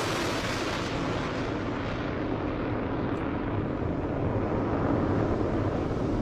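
Launch of an S-400 surface-to-air missile: the rocket motor gives a steady rushing roar with a low rumble beneath it. Its highest hiss thins out after about two seconds.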